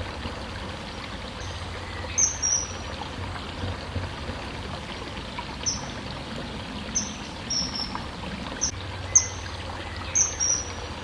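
Steady rush of flowing water, with short high bird chirps every second or two.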